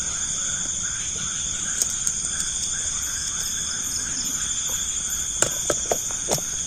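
Night insects chirring steadily, with a lower call pulsing about twice a second. A few sharp clicks come near the end.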